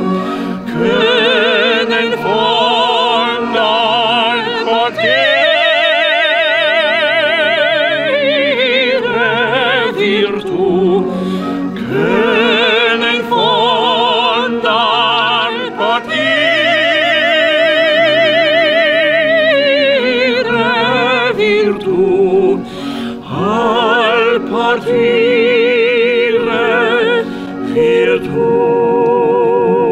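A soprano and a tenor singing opera together: long held notes with wide vibrato, in phrases broken by short pauses.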